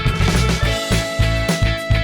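Background music: an upbeat instrumental track with a steady drum beat and guitar.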